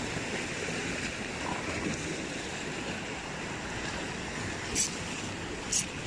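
Steady wash of big sea waves against a rock breakwater, with two short sharp clicks near the end.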